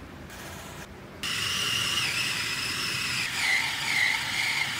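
Electric food chopper's motor starting about a second in and running at speed with a high whine, grinding raw Spanish mackerel fillet into paste. The pitch of the whine dips a couple of times as the load changes, and it cuts off at the end.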